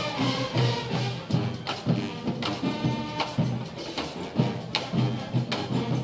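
Marching band playing live: a brass section over a steady drum beat.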